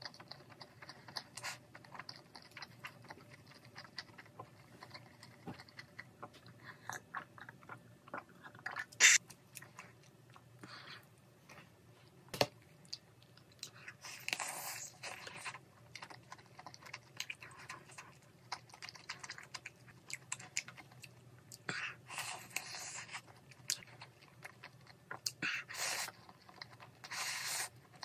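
Close-miked eating of spicy stir-fried instant noodles with cheese: repeated slurps and chewing, with a bite into a kielbasa sausage about halfway through. A couple of sharp clicks stand out early on the way.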